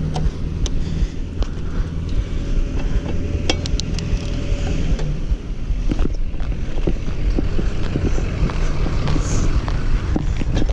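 Rumbling and rattling of a mountain bike being pushed and then ridden over grass and pavement, heard through a camera mounted on its handlebars, with scattered sharp clicks and knocks and wind on the microphone.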